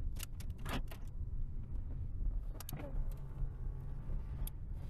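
Steady low hum of a 1993 car's cabin with the engine running. A few sharp clicks come from the door controls being worked, and a faint whine passes after about three seconds.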